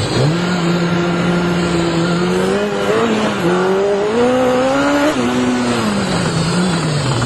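Kawasaki motorcycle engine under hard riding, heard from on the bike. The engine pitch holds steady, climbs, then drops sharply about five seconds in at a gear change, and falls again near the end as the throttle eases, with wind rushing over the microphone.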